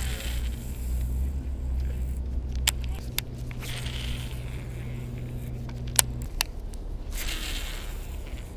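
Handling noise from a rod and fishing reel as the line is worked: brief rustles and a few sharp clicks. Under it runs a steady low engine-like hum that cuts off about six seconds in.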